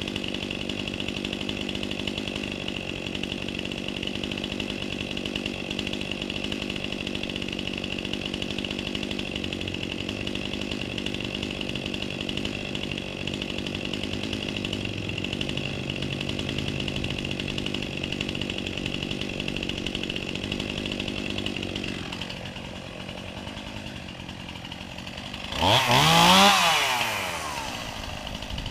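Chainsaw running steadily at an even pitch, easing off and quieter about two-thirds of the way through. Near the end it revs once, loud, the pitch climbing and falling back.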